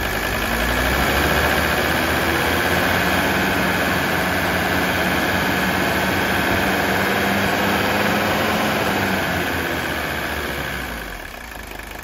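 Mercedes OM617 five-cylinder diesel engine held above idle on the throttle, running smooth with little injector nailing on straight vegetable oil fuel, then dropping back toward idle near the end.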